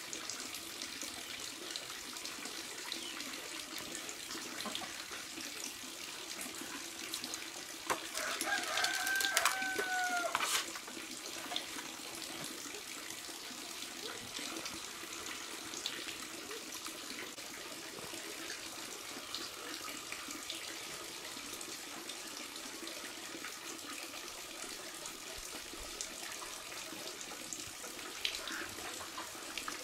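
A rooster crows once, about eight seconds in, a single call that rises and then falls, over a steady sound of running water.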